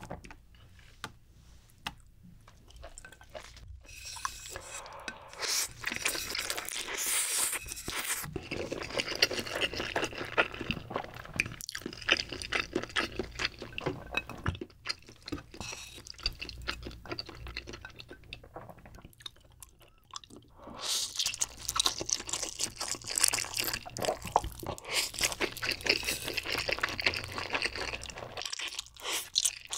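Close-miked wet eating sounds of saucy Chapagetti black bean noodles being lifted, slurped and chewed. Quiet for the first few seconds, then dense with a short lull about two-thirds of the way through.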